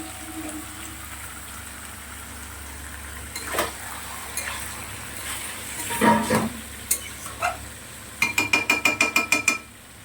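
Marinated chicken sizzling in hot oil in a pan while a metal spoon stirs it, with scattered scrapes and knocks against the pan. Near the end comes a quick run of about ten ringing metal taps on the pan.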